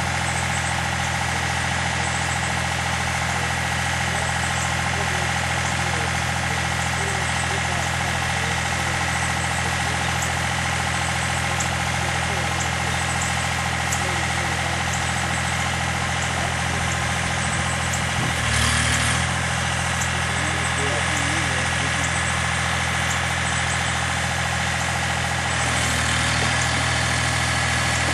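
A vehicle engine idling steadily, with a brief surge about 18 seconds in and a slight step up in level near the end.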